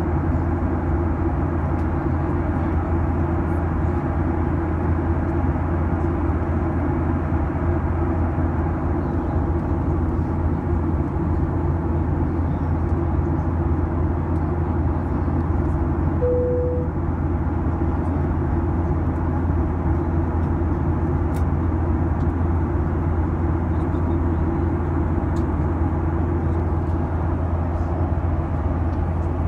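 Airliner cabin noise in flight: a steady rumble of engines and airflow, with a brief single tone about halfway through.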